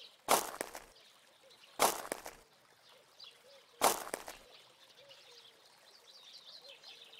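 Three short, sharp sounds about two seconds apart, each trailing off briefly, with faint bird chirps between and after them.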